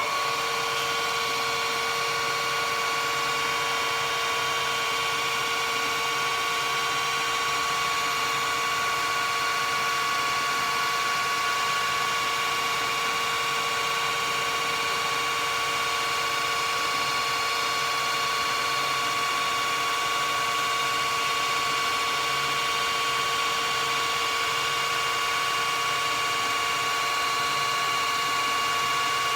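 Okuma & Howa STM 2V vertical milling machine's spindle running at a steady speed: an even mechanical whine with a strong high tone over a lower hum.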